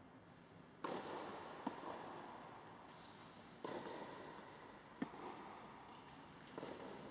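Tennis ball struck by rackets and bouncing on a hard court during a rally, five sharp hits in all, each echoing in the large indoor hall.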